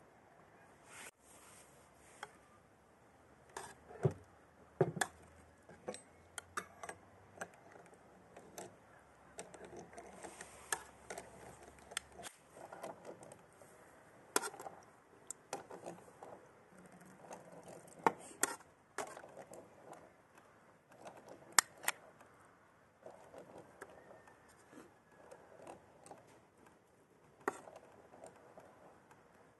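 Metal spoon clinking and scraping against a metal cooking pot and a china plate as food is spooned out, in scattered sharp clicks with quiet gaps between.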